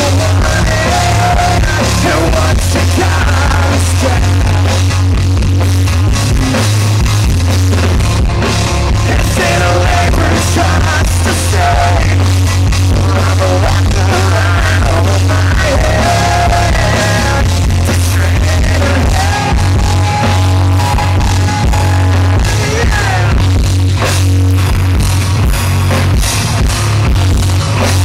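Live rock band performing, with a male lead singer over electric guitars, heard loud and heavily distorted from a recording made close to the stage.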